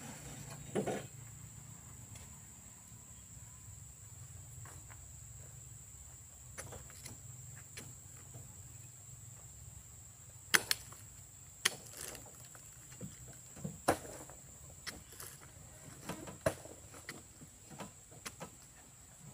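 Steady high-pitched insect drone over a low hum, with a scattered run of sharp clicks and knocks starting about ten seconds in.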